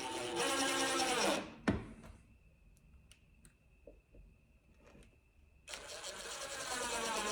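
Power drill driving 1 1/4 inch pocket hole screws into a drawer front: the motor runs under load for about a second and a half, stops with a knock, and then runs again for the last second and a half.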